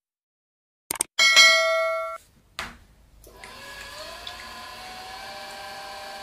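A click and a bright bell ding, the loudest sound, about a second in, then a short whoosh: a subscribe-button sound effect. From about three seconds in, an electric potter's wheel runs with a steady hum, its whine rising as it speeds up and then holding steady.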